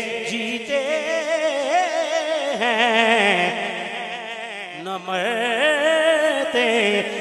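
A man's voice singing a naat in long, wavering notes with heavy vibrato, over a low sustained hum.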